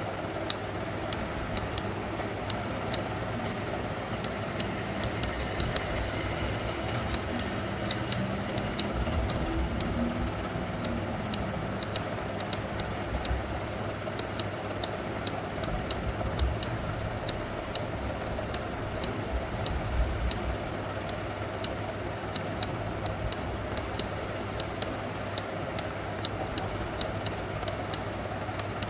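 Computer mouse clicking, sharp short clicks irregularly about one or two a second, from pressing and releasing the button while smudging, over a steady low room hum.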